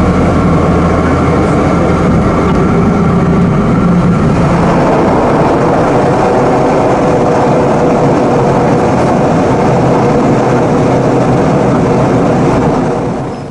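Cabin noise of a Piper M500 Meridian single-engine turboprop rolling out on the runway after landing: a loud, steady engine and propeller drone with air rush. About four seconds in, the low propeller hum fades while the rushing noise carries on, and the sound fades out near the end.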